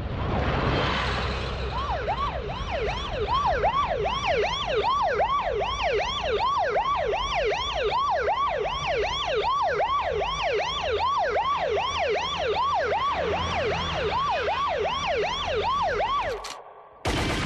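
Emergency-vehicle siren in a fast yelp, its pitch sweeping up and down about two and a half times a second over a low rumble. It cuts off abruptly near the end, and music begins.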